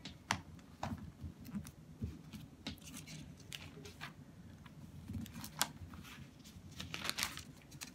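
Faint rustling and scattered light clicks of paper pages being leafed through to find a passage.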